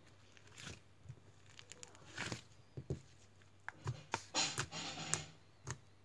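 Hands kneading and squeezing a lump of soft blue slime on a wooden tabletop: irregular wet squishes and small clicks, with a short flurry about two seconds in and the busiest, loudest stretch from about four to five seconds in.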